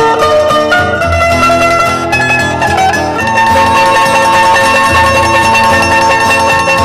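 Background instrumental music: a plucked-string tune, quick picked notes at first, then longer held notes from about three seconds in.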